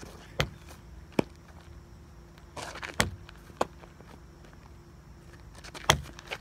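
A few sharp, irregularly spaced knocks and scuffs on asphalt, with a brief scraping rush just before the third knock. The loudest knock comes near the end.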